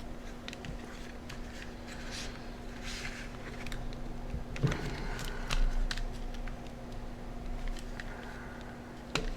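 Light clicks and short scrapes of small plastic parts being handled and pressed into place while reassembling a Sharp Zaurus SL-6000D handheld, over a steady low hum. A sharper click comes near the end.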